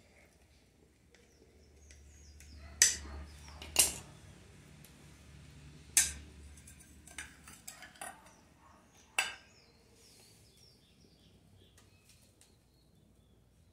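A metal knife and slotted spoon clinking against a glass plate: four sharp clinks with a few lighter taps between them.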